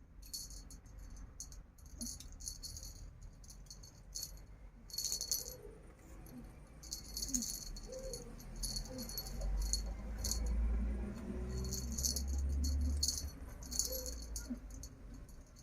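A small rattle or bell toy jingling in irregular shaken bursts, with a low rumble beneath in the middle stretch.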